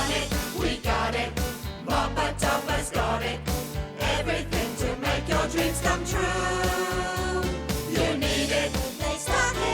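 Upbeat children's TV theme tune with a steady beat and a held chord about six seconds in.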